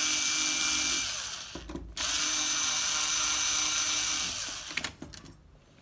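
Cordless electric screwdriver running in two spells of about two seconds each, unscrewing, followed by a single sharp click a little before the end.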